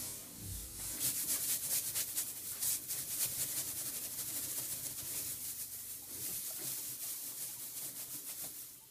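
Dry hay being rustled and crunched by hand in quick, crackly strokes, starting about a second in and loudest in the first few seconds. The sound is used to set guinea pigs popcorning.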